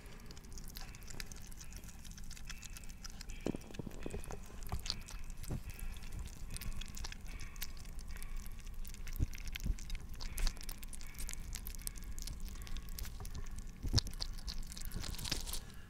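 Several young hedgehogs eating wet food from a plate, heard close up: a busy, irregular run of small clicks and smacks from their chewing.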